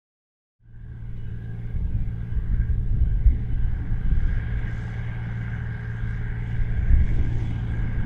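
Silence, then a little under a second in a John Deere 8520 tractor's six-cylinder diesel comes in, running steadily under load as it pulls a disc cultivator through the soil. The deep engine drone and rumble grow louder as the tractor comes closer.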